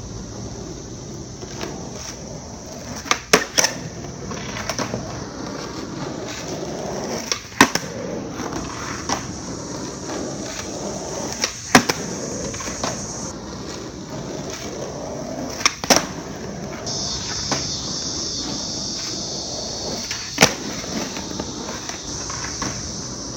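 Skateboard wheels rolling on asphalt, broken by sharp cracks of the board's tail popping and the board landing, about every four seconds, with a quick double crack about three seconds in.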